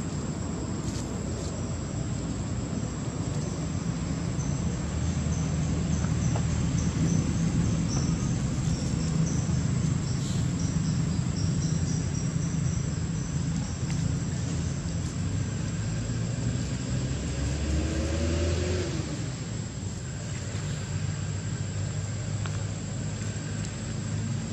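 Low, steady rumble of a distant engine, with a short rising glide in pitch about three quarters of the way through and a thin steady high whine above it.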